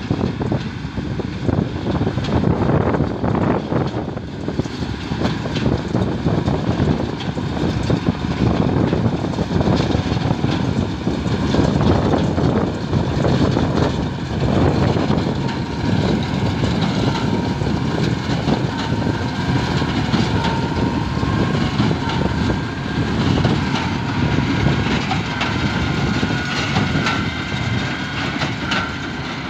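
Tractor diesel engine running steadily while towing a New Holland large square baler, with the baler's pickup and plunger clattering rhythmically as it bales cut grass. A faint whine rises over the clatter in the second half as the machine comes closer.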